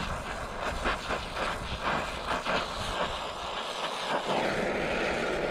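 Oxy-fuel torch flame running steadily while preheating the joint of a cast iron skillet's broken handle before welding. About four seconds in the sound turns into a steadier hiss as the torch is lifted off the work.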